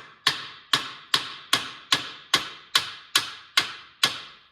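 Hammer blows on the front suspension, knocking a control arm loose: a steady run of about ten sharp strikes, roughly two and a half a second, each ringing briefly.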